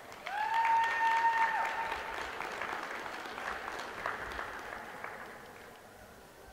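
Applause from a small crowd in an ice arena, swelling quickly and then dying away over about five seconds. A single held note rings out over it for about a second near the start.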